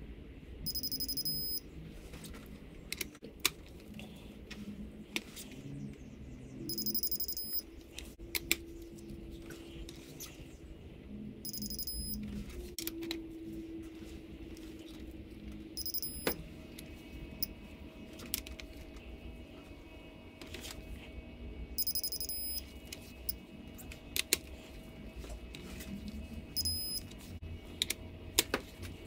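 Torque wrench ratchet clicking and metal tool clinks as cylinder head bolts are turned 90 degrees each on the angle pass. A short, high electronic beep sounds about six times, every few seconds, as from a digital torque-angle wrench signalling that the set angle is reached.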